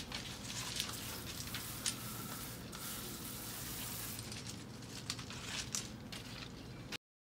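Steady hissing fizz of water from a garden hose soaking into dry Quikrete concrete mix in a post hole, with a few light clicks.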